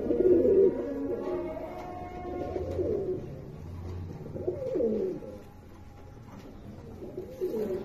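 American fantail pigeons cooing: repeated low, wavering coos from displaying cocks, quieter in the last couple of seconds.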